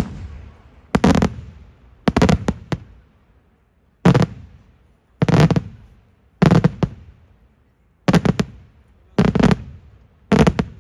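Daytime fireworks shells bursting in a steady sequence about once a second. Each burst is a cluster of several sharp bangs followed by a rumbling echo that dies away.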